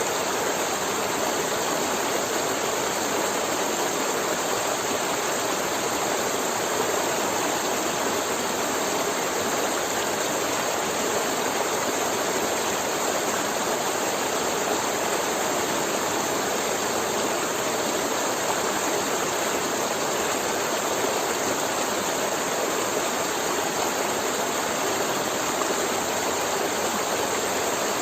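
Forest river flowing steadily over rocks, an even rushing with no breaks.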